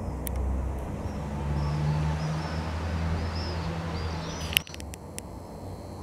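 A motor vehicle's engine running with a steady low hum that rises in pitch about a second and a half in. Birds chirp faintly, and there is a sharp click near the end.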